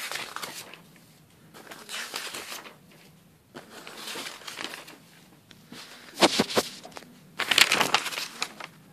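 Sheets of graph paper being handled and leafed through, rustling and crinkling in about five separate bursts, the loudest two near the end.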